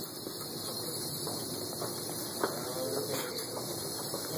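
Two HS-311 hobby servos modified for continuous rotation driving a small wheeled robot, a steady whirring hum.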